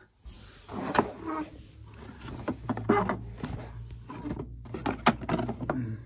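Action-figure boxes of thick cardstock with plastic windows being handled: scraping and rustling with a few sharp knocks, the sharpest about a second in and about five seconds in.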